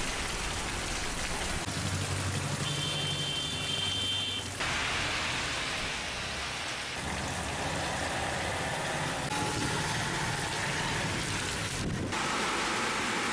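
Heavy rain falling and splashing on the ground, a steady hiss. The sound shifts abruptly about four and a half seconds in and again near the end.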